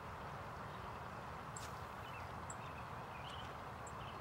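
Steady outdoor background noise with a low rumble, broken by a few short high-pitched chirps, likely from birds, spaced about a second apart, and a single sharp click about a second and a half in.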